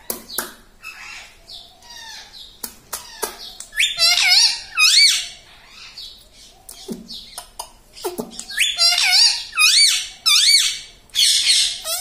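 Indian ringneck parakeets squawking: loud, harsh calls that wobble quickly up and down in pitch, in a run about four seconds in and several more from about nine seconds on, with short clicks and chatter between.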